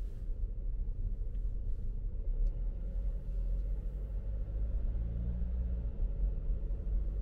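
Car driving along, heard as a steady low rumble of road and engine noise. A faint engine hum stands out briefly a little past the middle.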